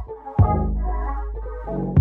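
Background music with a sustained deep bass and melodic notes, and a hard bass hit twice, near the start and at the end.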